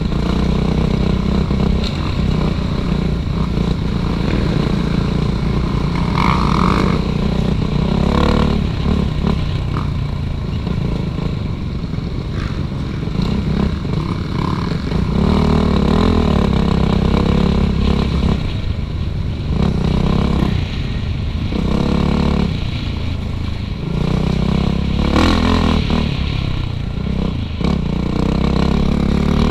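Suzuki RM-Z450 motocross bike's four-stroke single-cylinder engine, revving up and falling back again and again as it is ridden along a trail, with clattering knocks from the bike over rough ground.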